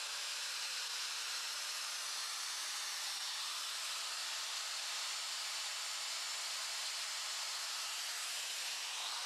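Electric angle grinder with a diamond blade running steadily off the stone, not cutting: an even hiss that stays at one level.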